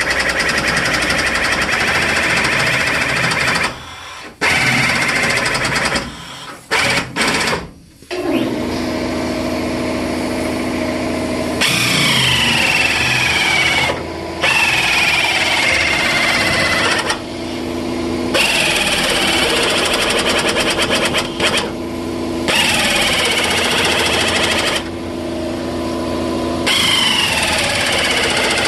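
A power tool cutting through the steel of a 1973 K5 Blazer's rusted quarter panel. It runs in long stretches and stops and restarts several times.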